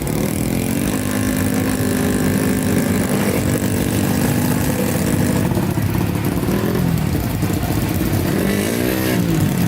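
Motorcycle engine running and revving. It holds a steady pitch for a few seconds, then the pitch swings up and back down near the end.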